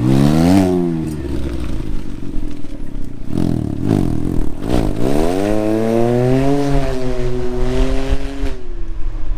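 Can-Am Ryker Rally's three-cylinder engine running through an RLS Echo Series aftermarket exhaust, revving and accelerating: the pitch climbs and drops sharply just under a second in, then climbs again from about halfway, holds, and falls away near the end.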